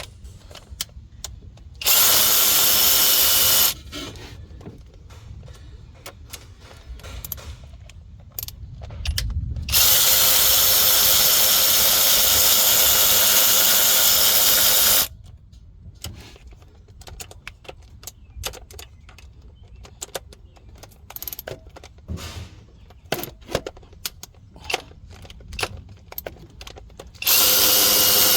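Cordless power tool running in three spurts, the longest about five seconds, driving fasteners out of an engine, with clicks and clatter of tools and parts between the runs.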